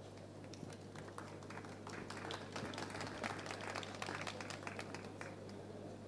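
Small audience applauding, faint and scattered: many quick claps start about half a second in, build, and die away near the end.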